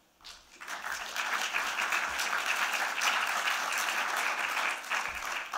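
Seated audience applauding. The clapping builds up in the first second, holds steady, and dies away near the end.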